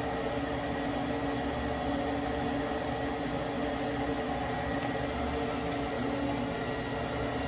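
Gas water heater's electric vent blower running steadily at full speed, a hum with a thin high whine, as the heater runs after being reset.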